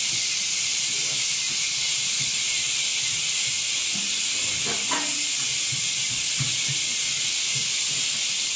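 A steady, loud hiss, with faint knocks and a brief clink about five seconds in from dishes being handled in a kitchen sink.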